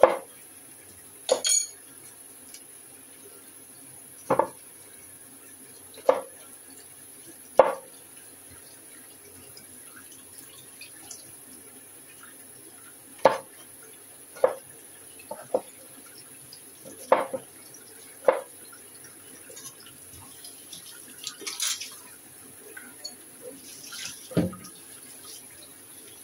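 Kitchen knife cutting broccoli into florets on a plastic cutting board: about a dozen separate, irregularly spaced chops of the blade striking the board, with a duller, lower knock near the end.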